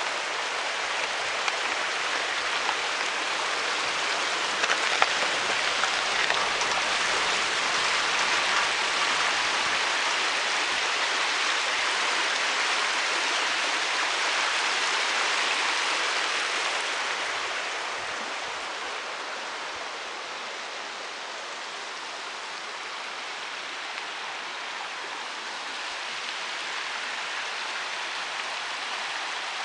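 Steady rushing of water, an even hiss that eases a little about eighteen seconds in.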